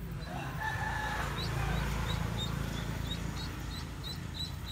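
A rooster crows once, about half a second in.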